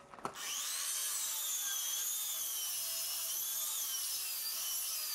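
Sliding compound miter saw cutting through stacked lumber, a steady high blade whine that wavers slightly in pitch under load. The owner says the blade is worn and needs replacing.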